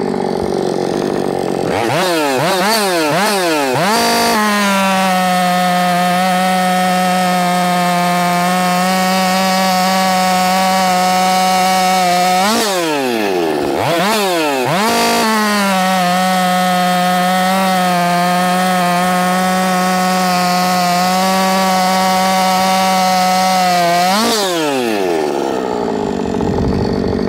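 Ported Husqvarna 562 XP Mark II two-stroke chainsaw, running on the lower-flow summer air filter: it idles, is revved three times, then runs at steady full throttle for about eight seconds as the chain cuts through a square wooden cant. It drops back, is revved again, makes a second steady full-throttle cut of about nine seconds, and falls back to idle near the end.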